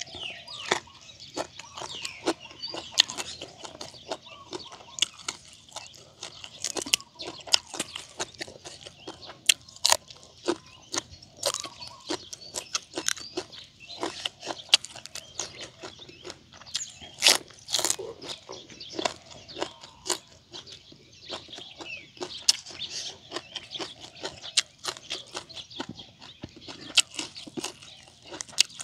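Close-up chewing and crunching of grilled frog and green papaya salad, with many sharp crunches at irregular intervals.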